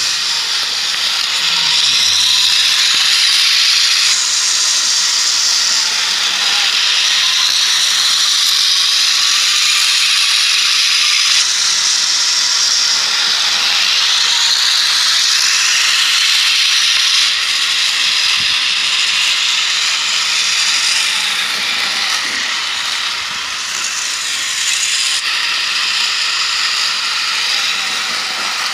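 Motorised toy train running on a plastic track: a steady, high hissing whir of the locomotive's small motor and wheels.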